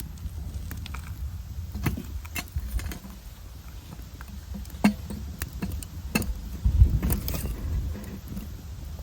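Scattered clicks and light clinks, about a dozen, over a steady low rumble.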